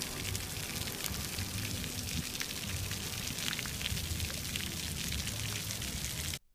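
Ground-level plaza fountain: thin water jets spraying up from floor grates and splashing back onto wet stone paving, a steady hiss full of small patters over a low, uneven rumble. It cuts off abruptly near the end.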